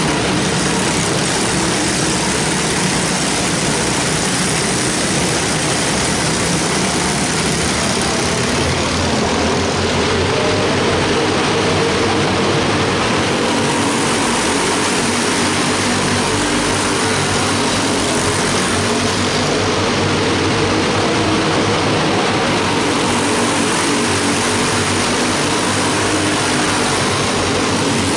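Small race cars' engines buzzing continuously as a pack laps the track, the drone steady throughout with its pitch shifting as the cars pass and throttle through the turns.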